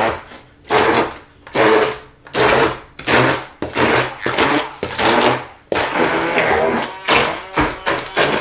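Immersion (stick) blender pulsed in short bursts, a quick burst every half second or so, with one longer run about three-quarters of the way through, chopping onions, garlic, peppers and olives in a stainless steel bowl. The ingredients are being minced down into a sofrito base.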